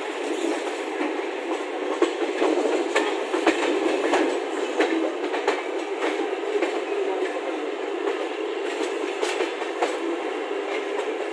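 Express passenger train running, a steady rumble broken by irregular clicks and knocks as the wheels pass over rail joints (clickety-clack).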